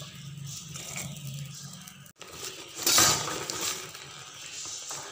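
Raw peanuts poured into a metal wok of heated coarse salt, rattling and clinking onto the salt and pan, loudest about three seconds in.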